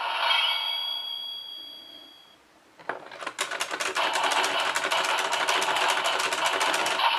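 DX Geartlinger toy morpher sound effect: an electronic chime fades out, then after a short pause a fast, even run of sharp clicks, about ten a second, until near the end.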